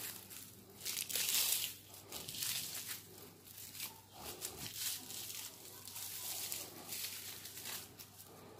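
A bundle of coloured plastic strips being rolled and twisted by hand against the leg into a cord, crinkling and rustling in irregular bursts, loudest about a second in and softer towards the end.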